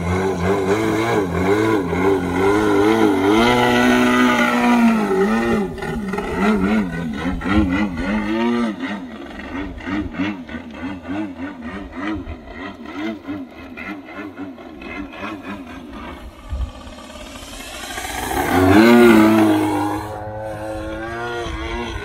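The O.S. GT33 single-cylinder two-stroke petrol engine of a radio-controlled Extra 330 aerobatic plane, its pitch wavering up and down in quick swells through 3D manoeuvres. It fades in the middle, then grows loud in a close pass near the end with the pitch dropping as it goes by.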